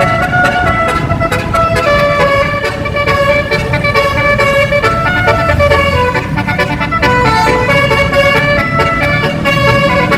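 Basuri 12-note telolet bus horn with roof-mounted trumpets playing a melody: clear horn tones, several at once, stepping from note to note every fraction of a second without a break.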